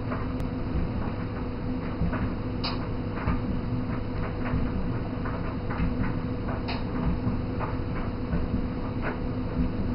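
Room tone: a steady low hum with a thin constant tone, and scattered faint irregular clicks, two of them a little clearer, about a third of a second in and near the middle.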